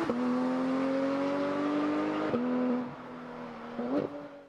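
Porsche 911 GT3 RS flat-six engine accelerating hard away, its pitch climbing through the gears with an upshift right at the start and another about two seconds in. The engine note fades with distance about three seconds in.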